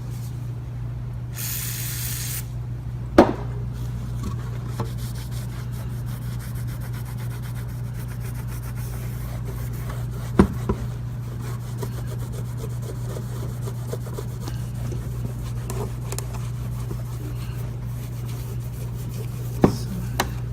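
A short spray of aerosol brake cleaner lasting about a second, then a rag rubbing and scrubbing a metal filter plate to lift old silicone residue. A few sharp knocks and a steady low hum run underneath.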